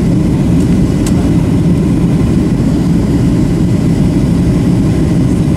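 Steady cabin noise inside a Boeing 737-700 in flight: a dense low rumble of its CFM56 jet engines and the airflow over the fuselage, with one faint click about a second in.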